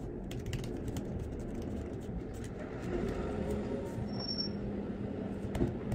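Typing on a MacBook Air laptop keyboard: an irregular run of light key clicks over a steady low background rumble.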